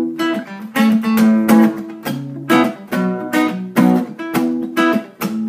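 Acoustic guitar strummed in a steady rhythm, each strum leaving its chord ringing.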